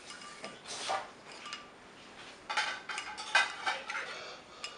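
A metal spoon clinking and scraping against a ceramic bowl while stirring dry yeast and then the yeast mixed with water. There are a few separate clinks early on and a quick flurry of clinks from about two and a half to four seconds in.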